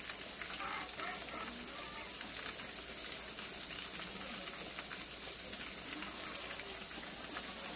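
Shrimp frying in a pan of hot oil: a steady sizzle with fine crackling from the bubbling oil.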